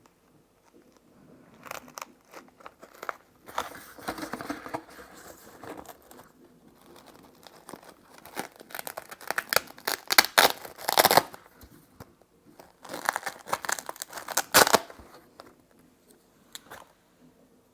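Hands rummaging through small tools and packaging: crinkling and rustling with small sharp clicks, in three bursts with quieter gaps, loudest around the middle.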